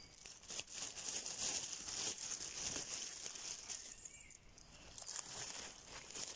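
Dry leaf litter rustling and crackling underfoot, in irregular scattered crackles over a steady high hiss.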